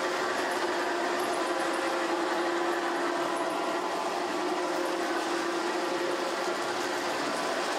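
G-scale model train running across a trestle on its track: a steady running noise with a constant hum from the locomotive and rolling cars.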